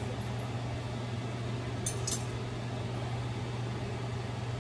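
A steady low hum, with two light clicks close together about two seconds in.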